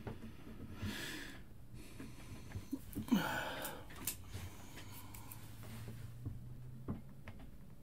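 A man breathing heavily through his nose and mouth, two audible breaths about a second and three seconds in, with small clicks and handling noises between them.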